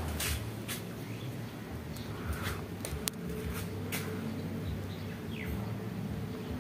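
Outdoor ambience: short, sharp chirps or clicks now and then over a steady low hum, which grows stronger about halfway through, with one faint falling chirp near the end.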